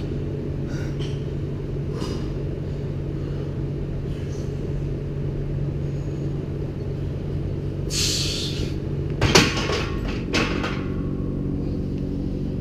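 Steady low hum of a weight room, broken near the end by a short hiss and two sharp metal clanks of barbell weights, the first the loudest.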